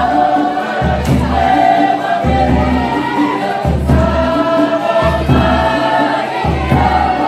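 A large group of school students singing a Cook Islands action song together as a choir, with a deep low beat pulsing underneath about every one and a half seconds.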